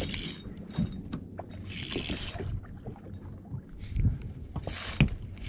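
Drag of a Daiwa Certate 2500 spinning reel buzzing as a hooked small tuna pulls line off, in two short runs about two seconds and four and a half seconds in, over wind and water noise against the boat.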